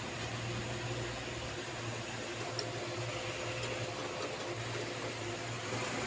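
Small electric motor running steadily with a low hum and even hiss, with one faint tick a little under halfway through.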